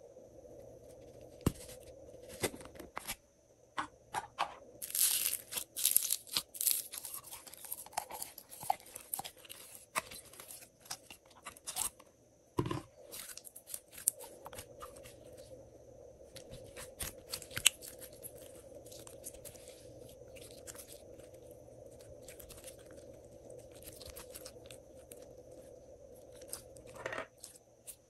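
Clear blue glitter slime squeezed out of its container into a dish of slime, giving sticky crackling and popping, densest about five to seven seconds in and thinning out toward the end.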